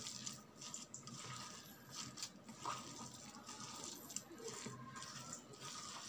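Faint, irregular wet squishing and crumbling of a hand kneading a moist mixture of ground dal and minced mutton.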